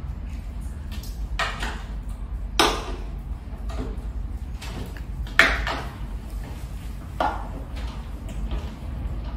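Metal tool clanking against the hollow steel frame of a flat-pack desk during assembly: four separate knocks with a short ring, the loudest about two and a half and five and a half seconds in, over a steady low hum.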